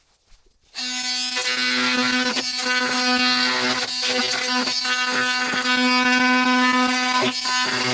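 Electric power saw starting abruptly about a second in and cutting steadily into wooden cabin siding: a steady hum under a dense high rasping hiss.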